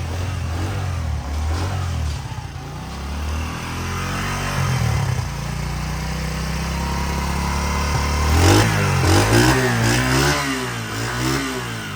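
Honda CD70 motorcycle's small single-cylinder four-stroke engine idling steadily, then revved up and down a few times from about eight seconds in.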